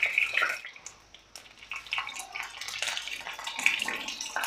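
Tap water running and splashing unevenly as something is washed by hand in a sink, with a few small knocks.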